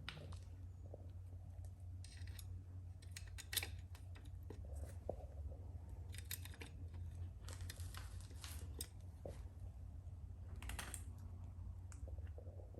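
Faint, scattered small clicks and light handling knocks, with a sharper click about three and a half seconds in and a cluster near eleven seconds, over a steady low hum.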